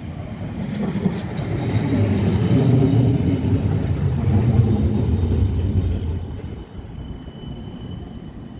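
A West Midlands Metro CAF Urbos 3 tram passes close by. Its wheels rumble on the rails, building over the first couple of seconds, holding, then fading about six seconds in. Thin, steady high whines sit above the rumble.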